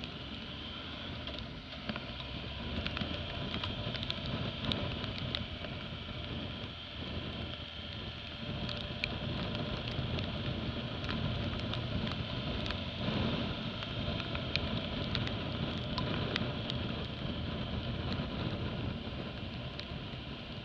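Motorcycle riding on a wet road, heard from a camera on the bike: the engine running under a steady rush of wind and tyre hiss on wet tarmac, with many scattered small ticks.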